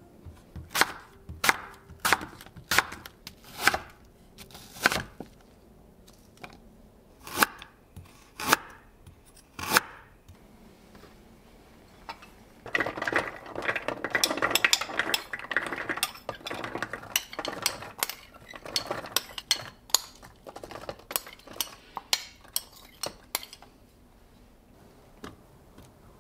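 Kitchen handling sounds: a series of sharp knocks and clinks of dishes and utensils on the counter. About halfway through comes a few seconds of dense clattering and scraping as a metal spoon scoops diced beetroot out of a glass bowl into a blender jug. More scattered clicks follow.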